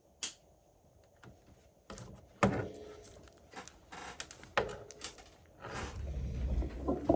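Small hand tools and parts clicking, tapping and clattering on a workbench during phone battery repair work, with a sharp click at the start, a few louder knocks and rustling handling noise near the end.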